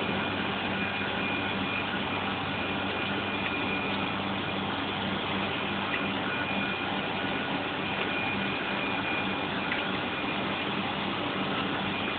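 Steady mechanical hum and hiss of running machinery with a low drone, and a few faint clicks and taps as a laser tube is handled in its mounts inside a laser cutter.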